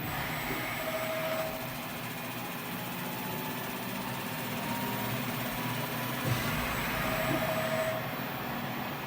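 SuperTec G32P-60 CNC cylindrical grinder running: a steady mechanical hum from its spindle and servo drives. A short, higher whine comes twice, and there is a single knock a little past the middle. The machine runs smoothly, sounding sound and in good order.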